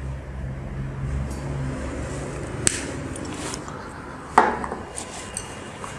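Light clicks and knocks from a whiteboard marker and pointer being handled at a whiteboard, over a low steady hum. There is a sharp click a little under three seconds in, and the loudest sound is a sharp knock about four and a half seconds in.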